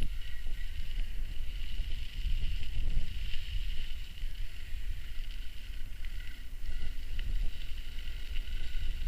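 Wind buffeting the microphone in a constant rumble while riding an electric mountain bike, with a steady high-pitched whine running underneath.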